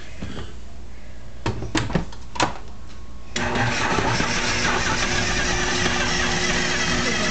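Three sharp clicks as the KitchenAid food processor's lid is fitted, then about three and a half seconds in its motor starts and runs steadily, the blade chopping chunks of cooked beef brisket.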